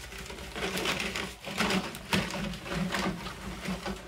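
A vent tube being pushed and worked into a hole broken through a stone wall. It scrapes and grates irregularly against the stone and loose rubble.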